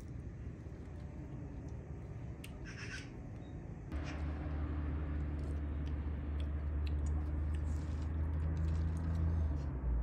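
Chewing and crunching of kilao, a walnut sweet, heard as small sharp crunches over a steady low hum that grows louder about four seconds in.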